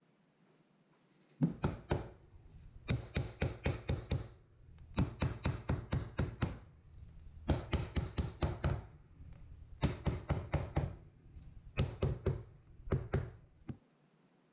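Mallet tapping floor tiles down into fresh mortar to bed them: quick runs of sharp taps, several a second, with short pauses between the runs.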